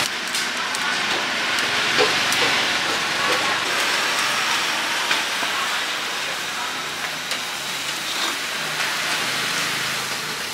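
Steady hissing sizzle of street food cooking: skewered meat and seafood in a pot of simmering broth and over a charcoal grill, with a few light clicks.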